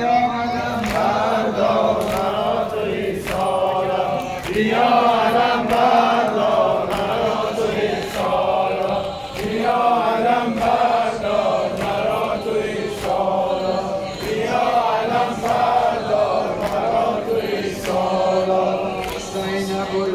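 Men chanting a Muharram mourning lament together in phrases of a second or two, over a steady low drone, with a regular knock about once a second.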